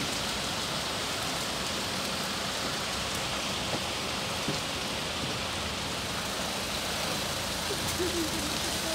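Steady hiss of rain falling onto a flooded street, with faint voices near the end.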